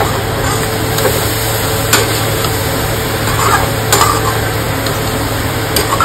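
Metal spatula stirring poha into frying masala in a metal kadhai, with a steady sizzle. Sharp knocks of the spatula against the pan come about two, four and six seconds in.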